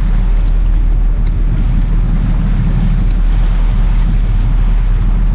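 Steady low rumble of wind buffeting the microphone over a sport-fishing boat's engine, with water churning beside the stern.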